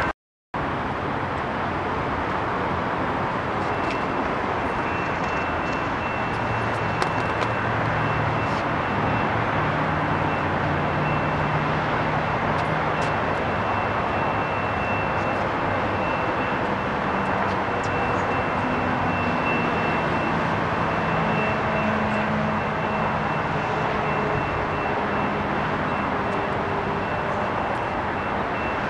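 Steady rumble and hiss of a distant passenger train with outdoor background noise, with faint low engine tones that drift slowly in pitch and a faint high steady tone, after a brief silent gap at the start.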